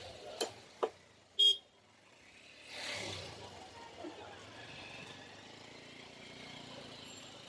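Steady road-traffic noise, with a brief loud beep like a horn toot about one and a half seconds in and a couple of sharp clicks just before it; a swell of passing-vehicle noise follows around three seconds in.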